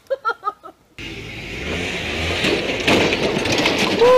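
Side-by-side UTV (Polaris Ranger) engine running hard and revving on a rock climb, with a few knocks as the vehicle goes over. A person cries out near the end.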